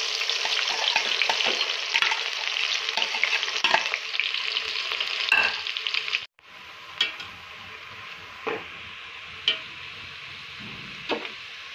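Sliced onions frying in hot cooking oil in a steel pot, sizzling loudly as they go into the oil, with a metal spatula stirring and scraping. About six seconds in it cuts abruptly to a quieter, steady sizzle broken by occasional sharp spatula scrapes on the pot.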